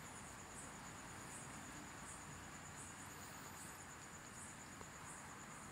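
Near silence: a faint steady hiss of microphone room tone, with faint high-pitched pips repeating a little faster than once a second.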